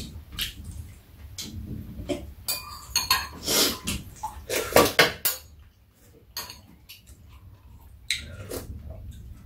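Metal spoons and chopsticks clinking against bowls and dishes during a meal, in short, irregular taps.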